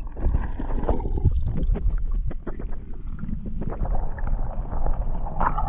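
Muffled underwater sloshing and low rumble heard through a submerged camera, with scattered clicks and knocks, as a hand moves a largemouth bass through the pond water to release it. A louder swish comes near the end.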